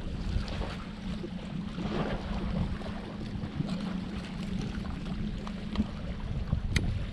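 Wind on the microphone and waves washing against jetty rocks, with a steady low hum underneath and one sharp click near the end.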